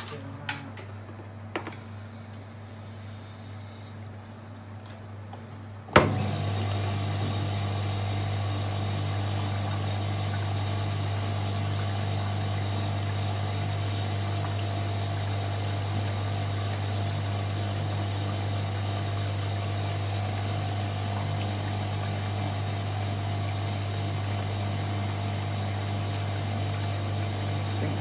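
Hotpoint 9414 twin tub's spin dryer switching on with a sharp click about six seconds in, after a few small clicks, then running at an even speed with a steady motor hum and rushing water as the spin water is thrown out of the wet load. It does not yet speed up, which is taken for the drag of the heavy wet load.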